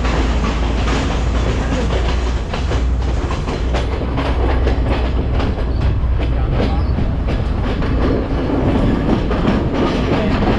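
Passenger train running, heard from on board beside the carriage: a steady deep rumble of the running gear, with the wheels clacking over rail joints again and again.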